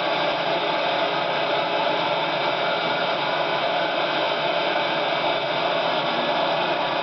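Steam cargo ship's engine room machinery running: a loud, steady, unbroken noise that does not change.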